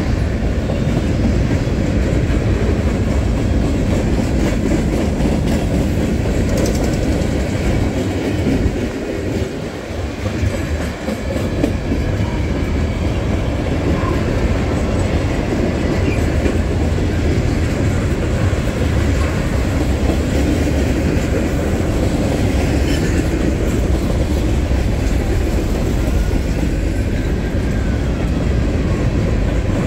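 Norfolk Southern manifest freight train's cars (tank cars, covered hoppers, boxcars) rolling past close by on steel wheels, a steady loud rail noise that dips briefly about ten seconds in.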